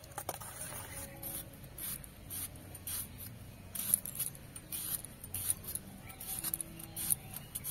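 A red onion being sliced against a bonti, the upright curved cutting blade: short crisp cuts at an irregular pace, about one or two a second.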